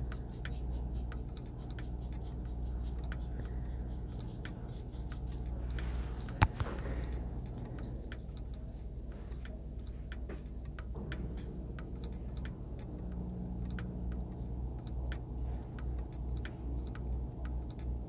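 Faint scattered ticks and clicks of a watercolour brush and painting tools handled on paper and palette, over a low steady hum, with one sharp knock about six seconds in.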